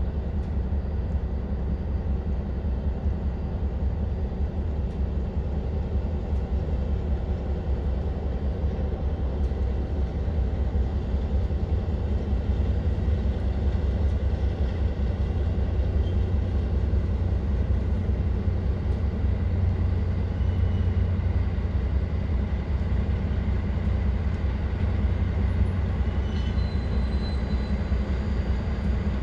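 A diesel locomotive's engine running steadily with a deep rumble while a passenger train rolls slowly in alongside. Faint high squeals, typical of brakes or wheels, come in near the end.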